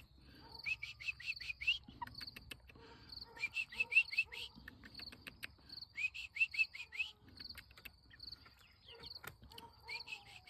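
Bird chirping: runs of four or five quick rising chirps repeated about every two to three seconds, over a faint steady insect chirring.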